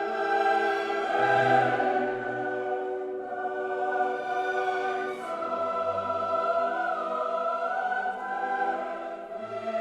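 Background choral music: sustained voices singing held, slowly shifting chords over a low bass line.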